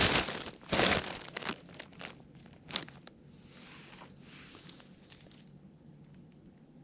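Crunching and rustling close to the microphone on a pebble shore. It is loud for the first second and a half, then breaks into scattered clicks and crunches that fade to a faint hiss.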